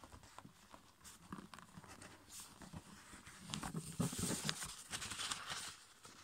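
Red A5 copy paper being folded and creased by hand: soft crinkling and rustling with light fingertip taps and scrapes, growing louder a few seconds in as the sheet is handled more.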